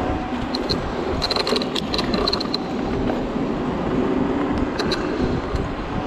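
Wind buffeting the camera's microphone and tyre noise from a Zero 10x electric scooter riding down a city street, a steady rumble. Clusters of sharp rattling clicks come from about half a second to two and a half seconds in, and again briefly near five seconds.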